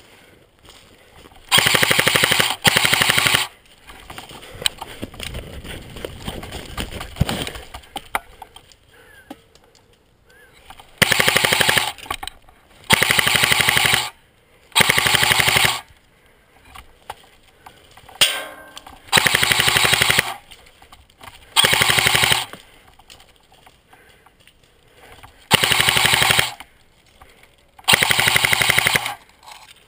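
Airsoft gun firing full-auto, about nine short bursts of rapid shots, each about a second long, with pauses between. The shots are loud and close.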